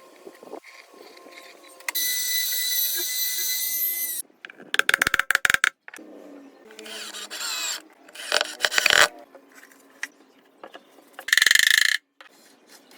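A quick series of separate woodworking power-tool sounds with abrupt starts and stops: a steady high whine for about two seconds, then a rapid run of clicks and several short bursts.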